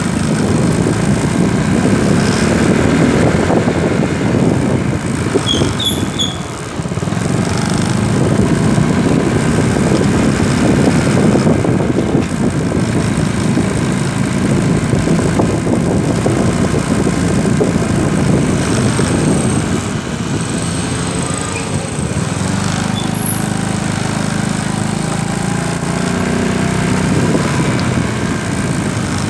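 Small motor vehicle's engine running steadily under way, with road and wind noise from riding aboard it.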